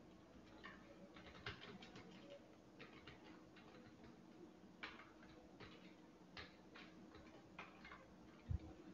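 Faint, irregular clicking of computer keyboard keys being typed, a few keystrokes a second with short pauses, and a soft thump near the end.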